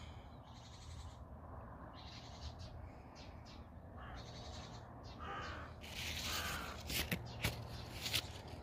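Birds calling over and over in short, harsh, crow-like calls. Near the end there is a louder burst of rustling with a few sharp clicks.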